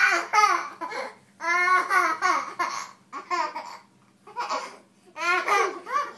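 Toddler laughing hard, high-pitched giggles and squeals coming in repeated bursts with short pauses between.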